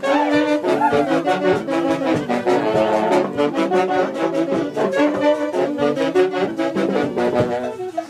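Huaylas music from a wind orquesta, saxophones and brass playing the melody over a steady beat.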